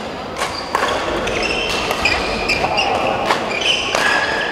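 Badminton play on an indoor court: sharp racket strikes on the shuttlecock repeated every half second or so, mixed with short high squeaks of court shoes on the floor.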